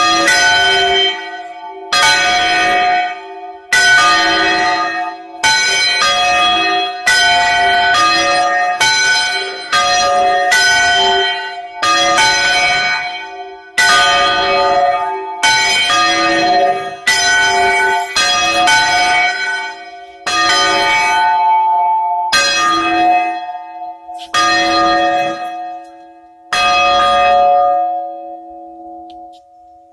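Two bronze church bells swung by hand (Spanish bandeo), their clappers striking about once a second. The strikes stop about 27 seconds in, and the bells ring on and fade away.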